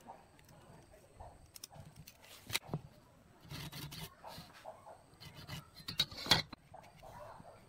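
Pencil scratching across a pine block as lines are drawn against a steel rule, with sharp clicks and knocks as the rule and square are handled and set down on the wooden bench, the loudest about six seconds in.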